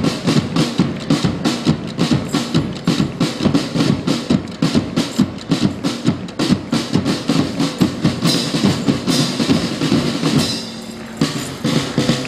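Marching drum corps playing a fast, steady drum cadence of many even strokes. It drops briefly quieter about ten seconds in.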